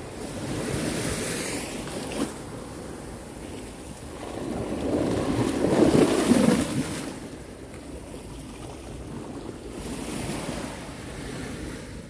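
Small sea waves breaking and washing up over a sloping concrete seawall, coming in swells, the biggest surge about halfway through.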